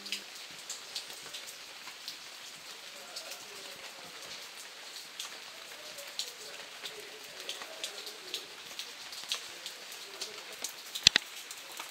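Rain falling, with many irregular drops tapping close by, and one louder knock near the end.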